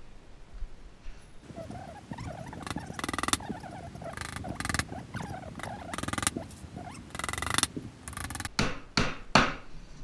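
Hammer driving spiral finishing nails into a plywood beehive box: a run of sharp blows starting a little under three seconds in, some single and some in quick clusters.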